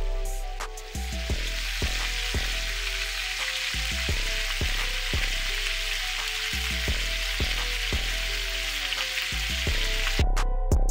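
Chicken leg quarters sizzling as they sear in a cast iron skillet, starting about a second in and cutting off sharply near the end, over background music with a steady beat.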